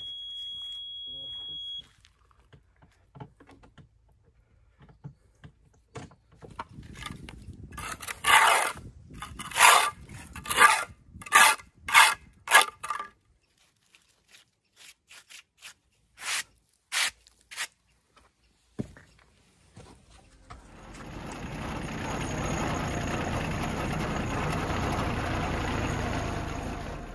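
A hand tool scraping stone and concrete in a run of about eight hard strokes, then a few lighter, sparser ones. About twenty seconds in, a steady running noise begins from a compact tractor being driven.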